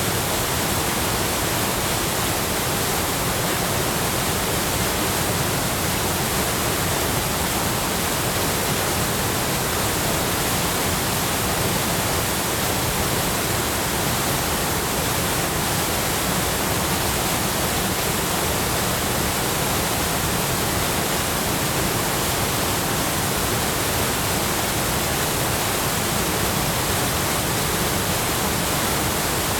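Chōshi Ōtaki waterfall on the Oirase Stream, water pouring steadily into its pool in a loud, constant rush.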